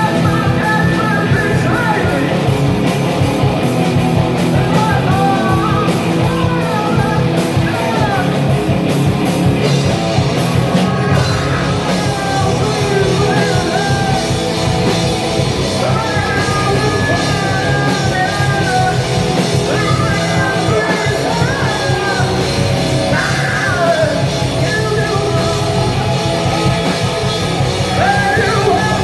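Live rock band playing loud and continuously: electric guitar, bass guitar and drums with cymbals, and a singer's voice over them.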